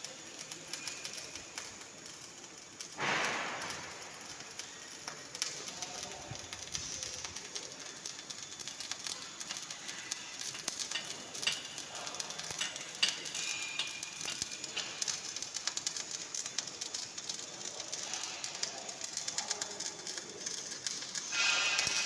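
MIG welding arc crackling with a fast, even sputter, louder for a moment about three seconds in and again near the end.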